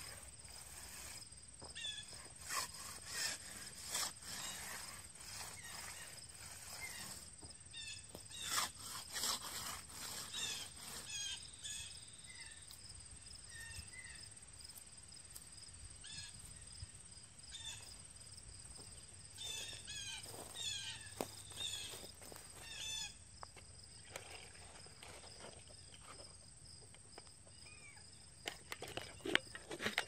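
Outdoor ambience of insects droning steadily with a high tone and birds chirping now and then, with intermittent soft scrapes from a hand concrete edger being run along the wet edge of a fresh slab.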